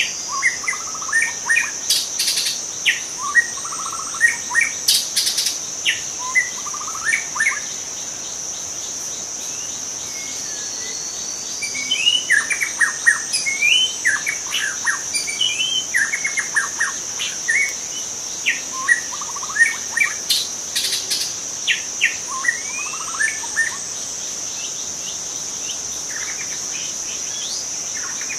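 White-rumped shama (Murai Batu Medan) singing: a lively run of varied, sliding whistled phrases in two spells with a pause of a few seconds between them. A steady high insect buzz runs underneath throughout.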